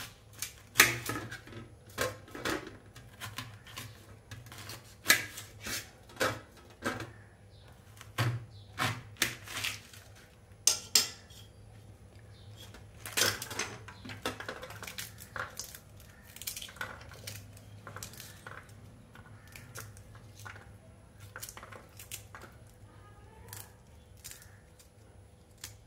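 Kitchen knife cutting into a pomegranate on a stainless steel plate, its blade clicking and clinking against the metal at irregular moments. The clinks come thick in the first half and thin out to softer handling sounds later.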